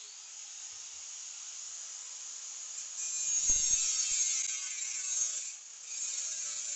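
A tool working the steel of an old brush-cutter blade: a steady, harsh scraping hiss that gets louder about three seconds in and drops briefly near the end.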